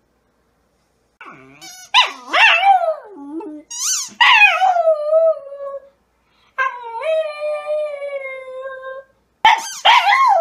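Small dog howling: after a second of quiet, a run of wavering, up-and-down howls and yowls, then one long held howl that sinks slowly in pitch, ending in a couple of sharp yelping calls.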